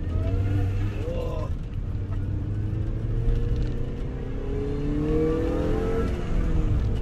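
R53 Mini Cooper S's supercharged 1.6-litre four-cylinder engine accelerating, heard from inside the cabin: the engine note climbs steadily for a few seconds, then drops sharply about six seconds in as the revs fall at a gear change.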